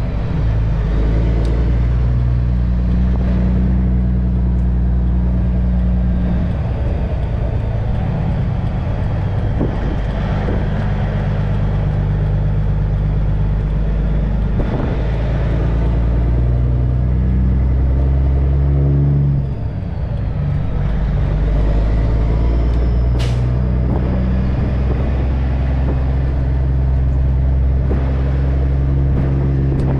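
Semi-truck's diesel engine pulling away and accelerating, its pitch stepping up and down every few seconds as the driver works through the gears, with a brief drop in level about two-thirds of the way in during a shift.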